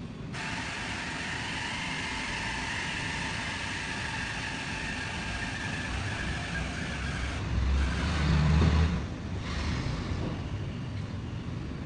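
Road traffic noise: a steady hum of vehicles, with a louder low rumble of a vehicle passing about eight seconds in.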